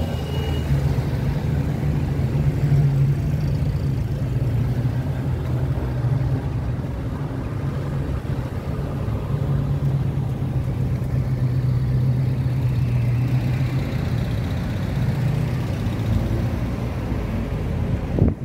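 Road traffic with a motor vehicle's engine running steadily close by, a low hum over a rumble that eases off near the end.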